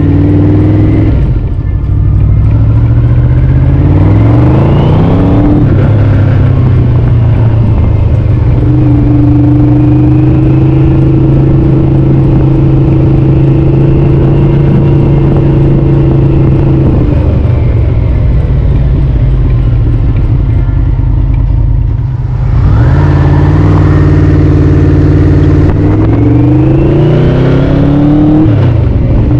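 Yamaha VMAX 1200's V4 engine under way. It climbs in pitch through the gears near the start, holds steady revs in the middle, and climbs again near the end, with brief dips between the rising runs.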